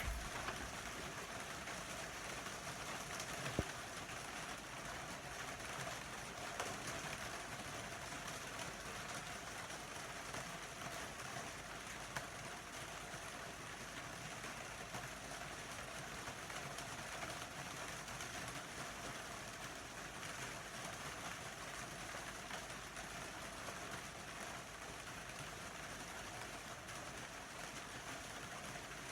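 Steady rainfall hiss with a few faint drip-like ticks.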